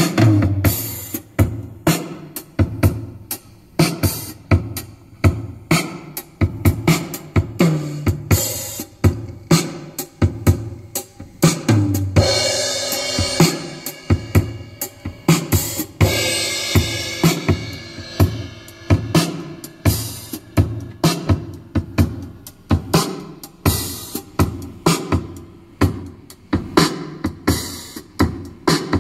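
Drum-led music, with kick, snare and cymbals in a steady beat of about two hits a second, played through an Opel Astra's aftermarket sound-quality audio system, made up of a Hertz Mille speaker kit and a Zapco amplifier, and heard inside the car's cabin. The cymbals wash out in two longer stretches about midway.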